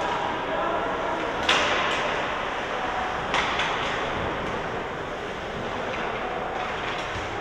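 Ice hockey rink sound during a game: a steady hiss of skating and arena hubbub, broken by sharp clacks of stick and puck. The loudest clack comes about a second and a half in, another just after three seconds, and a few fainter ones later.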